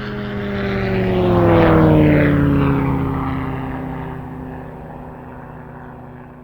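An engine passing by: it grows louder for about two seconds, its pitch falls as it goes past, then it fades away.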